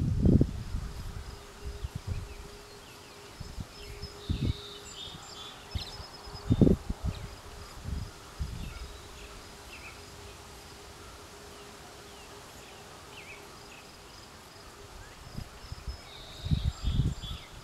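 Open-field ambience: a faint steady buzz runs under most of the stretch, a few short high chirps come through twice, and irregular low thumps and rumbles, the loudest about a third of the way in.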